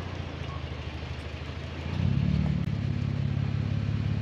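A motor vehicle's engine running steadily, then louder and higher about two seconds in as it picks up revs, cutting off suddenly near the end.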